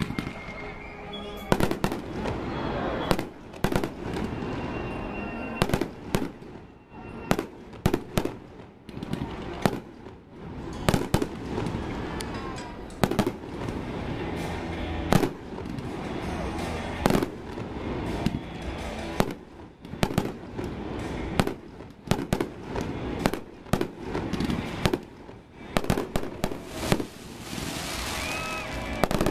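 Fireworks show: aerial shells bursting in irregular succession, many sharp bangs a second or so apart, turning into a dense crackle near the end.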